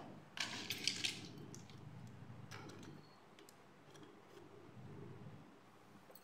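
Handling of small plastic toys: a short rustling scrape about half a second in, then scattered light clicks and taps as a butterfly-shaped plastic toy makeup palette is brought over and set down.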